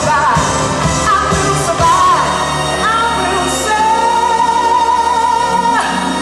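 A pop song with a singing voice, sung into a microphone on stage. The beat drops out about two seconds in, and the voice then holds one long note before moving on near the end.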